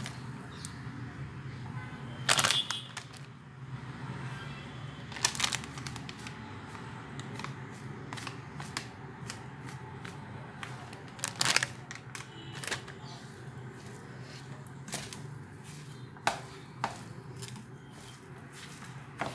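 Hand mashing and mixing crumbled bread with gram flour in a nonstick pan: soft rustling and squishing with scattered sharp clicks, the loudest about two seconds in and again around eleven seconds, over a steady low hum.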